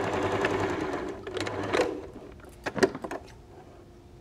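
Electric domestic sewing machine stitching a hem with a steady hum, which runs down and stops about a second in. It is followed by several sharp clicks and knocks as the work is handled at the machine; the loudest comes a little under three seconds in.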